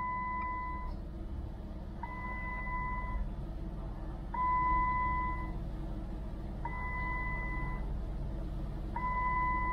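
2008 Jeep Wrangler's dashboard warning chime, a long beep of about a second repeating five times at even intervals over a low steady hum. It keeps sounding while the newly fitted ABS module has not yet finished its initialization.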